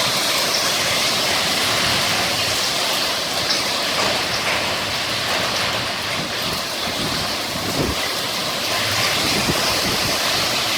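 Hail and rain pelting down in a steady, loud din, with scattered sharper hits from individual hailstones.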